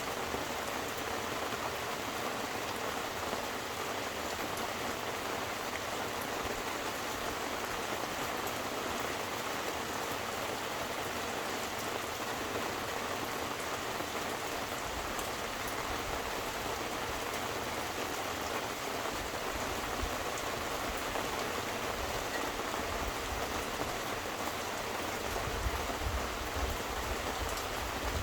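Steady rain falling, a dense patter of drops on surfaces at an even level, with a low rumble coming and going in the second half.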